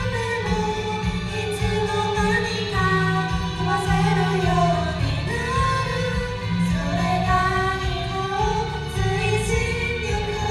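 Female voices singing a Japanese pop song together in sustained, gently gliding phrases over a steady instrumental backing.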